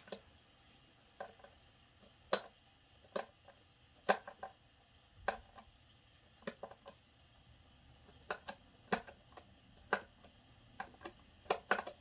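Hand screwdriver slowly turning a small cam lock screw into a furniture panel: scattered light clicks and ticks, coming closer together near the end.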